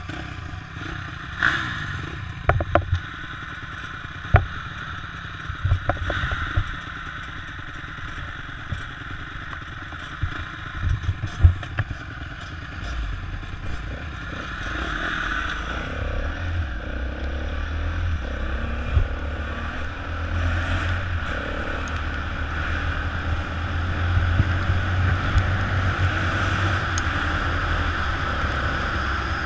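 Dirt bike engines idling, with several sharp knocks and clicks. About halfway through, the bike pulls away and its engine runs steadily louder as it rides along a gravel track, heard from a helmet-mounted camera.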